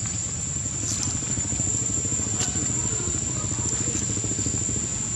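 A steady high-pitched insect drone over a continuous low rumble, with a few faint clicks.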